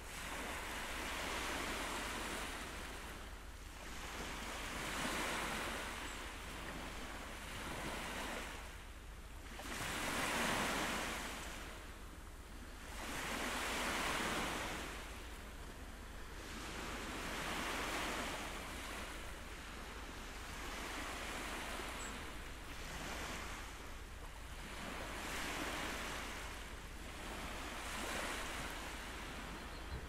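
Sea waves washing in and out, a swell of surf rising and falling about every three to four seconds.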